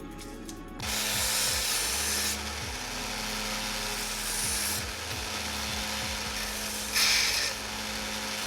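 Power tool grinding on a steel buckle piece: a steady motor hum under a loud abrasive hiss. The hiss starts about a second in, swells whenever the tool bites harder, strongest early on and briefly again near the end.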